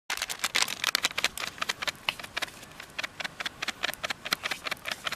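Light, irregular crackling and clicking of a plastic spice packet being handled as masala powder is sprinkled over raw catfish steaks in a metal pan.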